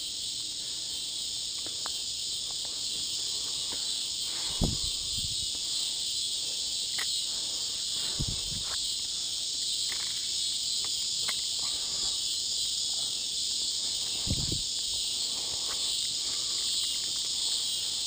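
Cicada calling right at the ear: a loud, steady, high buzz that never lets up, "like standing next to a PA speaker". A few soft low thumps come under it.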